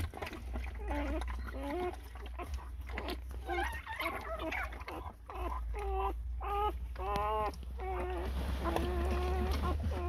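Newborn Laika puppies squealing and crying in short, high, wavering calls, with one longer, steadier cry near the end. A steady low hum runs underneath.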